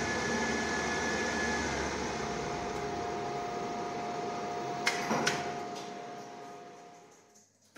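Schindler freight lift's original geared traction machine, its motor now driven by a variable-frequency drive, running steadily with a faint whine. About five seconds in, two sharp clicks, and then the running noise dies away as the machine comes to a stop.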